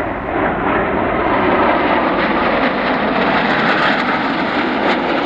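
Jet engines of a formation of military jets flying past: a steady, loud rushing jet noise that holds without a break.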